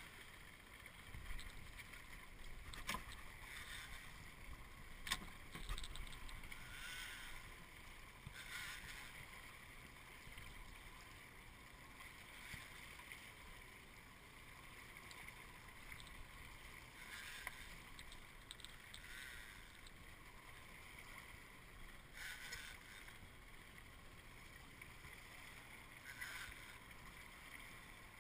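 Faint water lapping and sloshing against a small boat's hull, in short washes every few seconds, with two sharp clicks a few seconds in.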